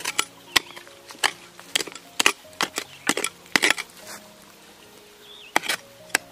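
A small hand hoe chopping and scraping into soil and roots, a run of sharp irregular strokes bunched in the first four seconds, with a couple more near the end.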